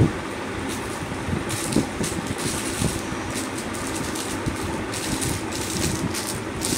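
Plastic packaging rustling and crinkling in irregular short bursts as earring cards are handled, over a steady low background hum.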